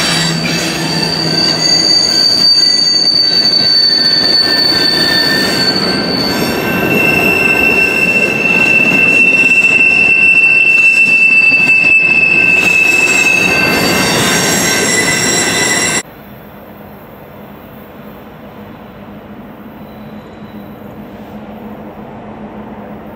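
Freight train tank cars rolling past with their wheels squealing on a curve: a high steady squeal, then a lower one taking over about seven seconds in, over the rumble of the wheels. About sixteen seconds in the sound cuts to a much quieter steady rumble from a distant diesel locomotive.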